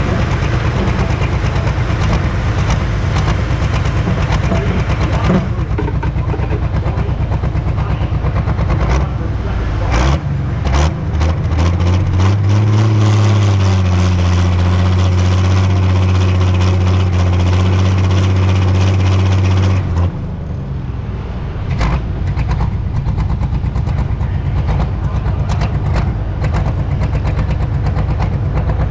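Pro Stock pulling tractor's diesel engine running close up, a loud rough rumble with sharp cracks mixed in. About ten seconds in the engine note rises into a strong steady drone, holds for several seconds, then drops back off around twenty seconds in.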